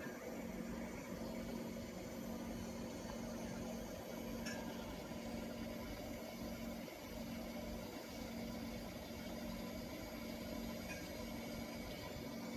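Steady low electric motor hum from a Langmuir-Blodgett trough's barrier drive as its two barriers slowly close in over the water surface, with a faint tick about four and a half seconds in.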